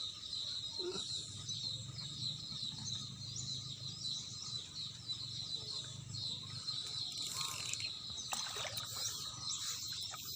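Outdoor ambience: many short bird chirps over a steady high-pitched drone, typical of insects. A few louder chirps come in the last few seconds.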